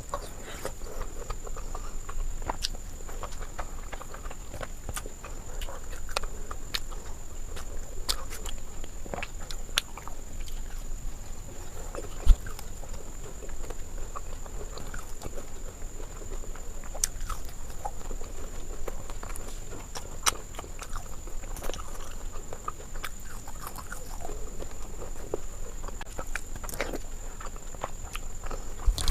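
Close-miked chewing and mouth sounds of someone eating Indian sweets: irregular wet clicks and smacks, with a louder click about twelve seconds in. A steady faint high whine runs underneath.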